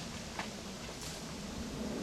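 Mountain bike rolling down a rooty dirt trail toward the listener: faint tyre noise on dirt with an occasional click or rattle from the bike.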